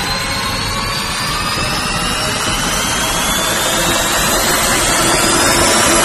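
Trailer sound-design riser: a loud, dense wash of noise under a whine that climbs slowly in pitch while it grows steadily louder, building tension.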